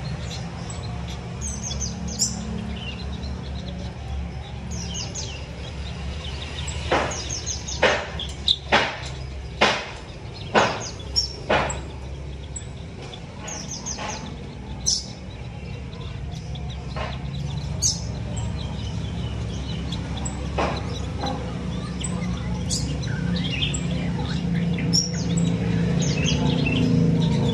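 Small aviary birds chirping and twittering with short high notes, and a quick run of about eight loud, sharp sounds about a third of the way in. A steady low hum sits underneath and grows louder toward the end.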